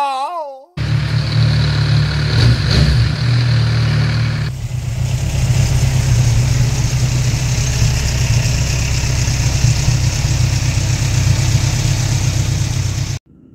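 Kawasaki Z1000 inline-four engine running with a rattle from the timing chain, which the owner blames on a defective cam chain tensioner; new valve clearances have not cured it. The sound starts abruptly under a second in, changes character about four and a half seconds in, and cuts off abruptly near the end.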